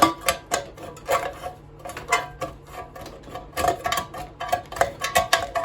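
Irregular metal clinks and scraping as a tool works a stainless steel heating element out of a cast aluminum grill casting. Each clink rings briefly, with bunches of quick clinks about a second and a half in and again near the end.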